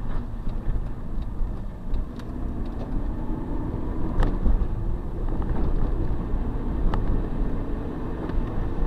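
Car engine and road noise heard from inside the cabin while driving, a steady low rumble, with a couple of short sharp clicks about four and seven seconds in.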